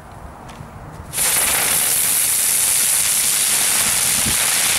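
A Comet 'Dicker Brummer' ground firework catches about a second in and sprays sparks with a loud, steady hiss that holds to the end.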